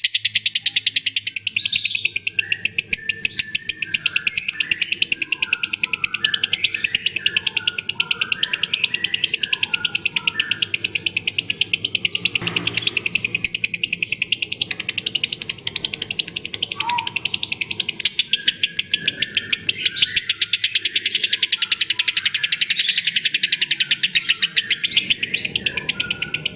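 Background music with a fast, steady pulse and chirp-like high notes.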